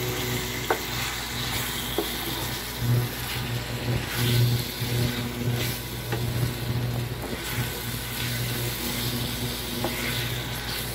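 Chicken and tomato sizzling in a nonstick frying pan as a spatula stirs and scrapes through it, with occasional clicks of the spatula against the pan. A steady low hum runs underneath.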